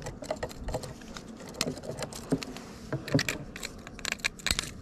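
Irregular clicks and rattles of fishing gear being handled: a lip gripper, a crankbait's treble hooks and a landing net knocking together as an awkwardly hooked bass is worked free.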